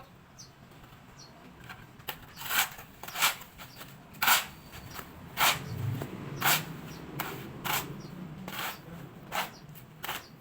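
A series of about nine short, sharp scraping or knocking strikes, roughly one a second and unevenly spaced, starting a couple of seconds in, over a faint low hum.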